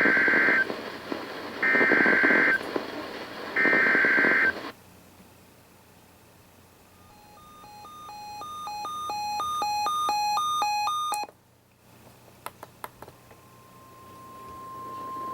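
NOAA Weather Radio alert sequence: three one-second bursts of the SAME digital header screech about a second apart. A weather-alert receiver then beeps rapidly on two alternating pitches, growing louder before cutting off. After a few clicks, the steady 1050 Hz warning alarm tone fades in near the end.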